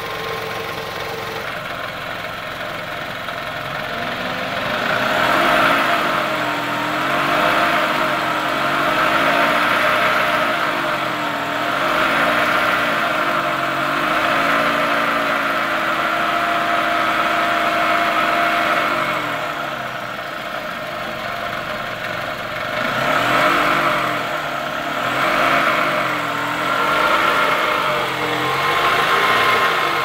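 2003 Toyota Camry's 2.4-litre 16-valve VVT-i four-cylinder engine idling, then revved up and down repeatedly by a foot on the accelerator, held up briefly midway, with a pretty loud mechanical noise that the owner takes for worn lifters and camshaft.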